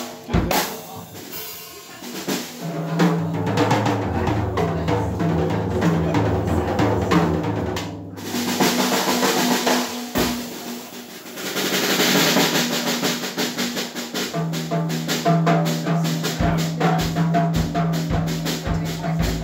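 Live rock band playing: a drum kit with snare, bass drum and cymbals over a bass guitar line and electric guitar. The music dips briefly about ten seconds in, then comes back.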